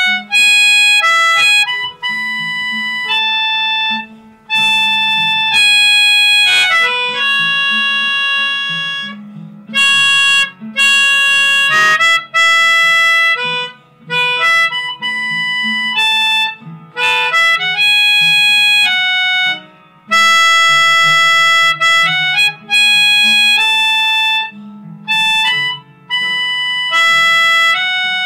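Background music: a melody of held notes over a low accompaniment.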